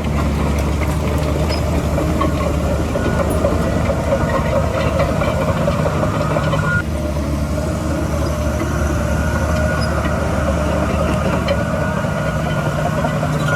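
Heavy diesel earthmoving machinery running steadily under load, a continuous low engine drone with a rough mid-range rumble.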